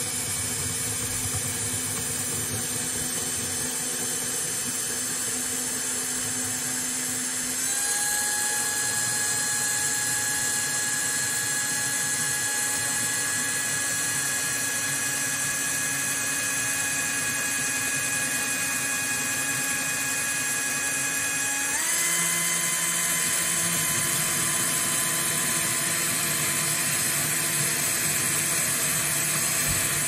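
Cordless drill turning a 3 mm diamond core bit, grinding a hole through fused glass: a steady motor whine over a grinding hiss. The whine steps up in pitch twice, about a quarter of the way in and again about two-thirds of the way in, as the drill speeds up.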